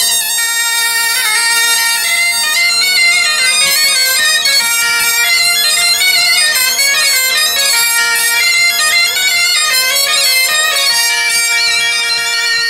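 Breton bombarde and biniou kozh bagpipe playing a dance tune together in the traditional pairing. The bagpipe's steady drone sounds under the shrill, ornamented double-reed melody.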